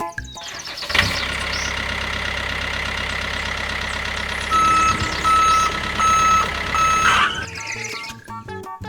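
A heavy vehicle's diesel-like engine running steadily, with a reversing alarm sounding four evenly spaced beeps in the second half; it starts about a second in and stops shortly before the end, when music comes back.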